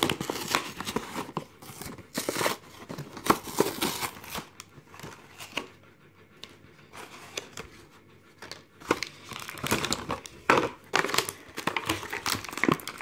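Clear plastic toy packaging crinkling and crackling as it is handled and opened, in irregular bursts, with a quieter stretch in the middle.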